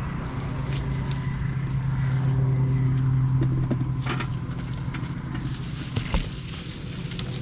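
An engine running steadily, a low hum that grows louder about two seconds in and then eases off, with a few light snaps and rustles from the guava branches being worked.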